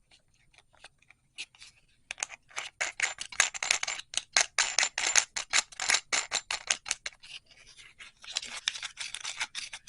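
Wrench tightening the nut that holds a motorcycle top box's lock cylinder: a quick run of ratcheting clicks, several a second, starting about two seconds in, easing off briefly after about seven seconds, then clicking again.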